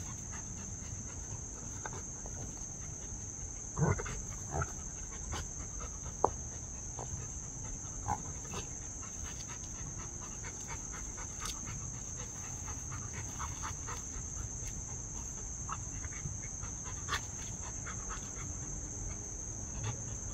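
Rottweiler panting as it noses and paws at rocks, with a few scattered short knocks and scrapes from the rocks, the loudest about four and six seconds in. Under it all runs a steady high-pitched insect drone.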